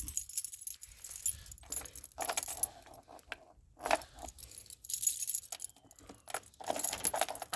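Key ring jangling in the ignition switch of a Craftsman riding lawn mower as the key is turned, in several separate bursts. The engine does not crank: its battery was shorted out and is flat.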